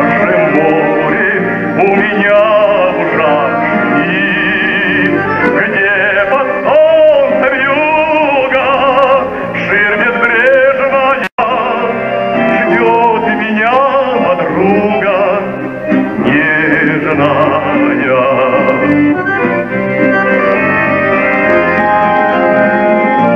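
A man singing a song into a microphone with a wide vibrato, accompanied by accordions (bayans). About 11 seconds in, the sound cuts out for a split second and then resumes.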